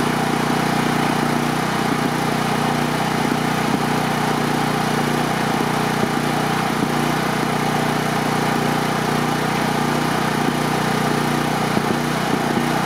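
Smarter Tools GP-9500EB portable gasoline generator running steadily at a constant, even speed.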